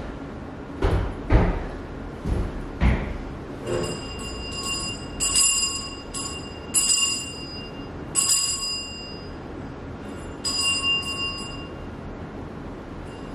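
A few dull low thumps, then a small metal bell struck again and again at an uneven pace, each stroke ringing briefly on the same bright tones, falling silent near the end.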